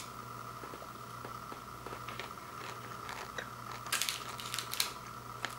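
Plastic candy wrappers crinkling and rustling as a hand handles a pile of wrapped fun-size candy bars, with scattered light crackles and a denser burst of louder crinkling about four seconds in. A faint steady hum runs underneath.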